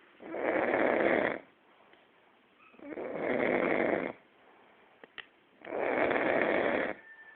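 Snoring: three long snores, each a little over a second, coming about every three seconds with quiet breaths between. A faint click falls between the second and third snore.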